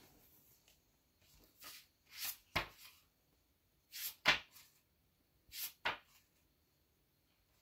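Book pages being turned by hand: three page turns, each a paper rustle followed by a sharp flap of the page.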